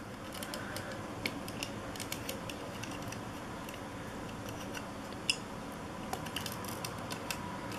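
Scattered light clicks and taps of fingers handling a toy Yamaha sport motorcycle model, over a steady low hiss.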